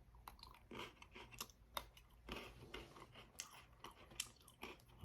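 Faint chewing of chocolate-covered Pocky biscuit sticks: soft, irregular crunches of crispy biscuit in the mouth.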